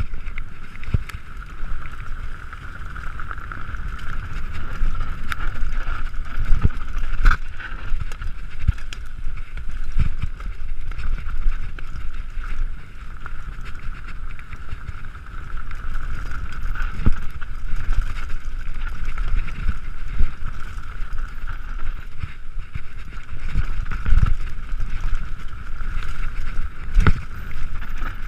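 Mountain bike going fast down a forest dirt trail: wind rush on the microphone and a steady high whir, with repeated knocks and rattles as the bike hits bumps.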